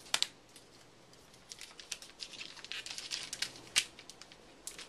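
Protective plastic film being peeled off a new Apple iPad Keyboard Dock: scattered faint crinkles and light clicks, with a sharper click a little before the end.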